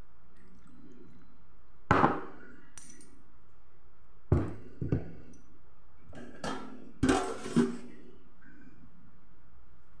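Stainless steel bowl and lid knocking and clinking: scattered ringing knocks as the palm seeds soaking in water are handled in the bowl, then a quick clatter of steel on steel about seven seconds in as a steel plate is set over the bowl as a lid.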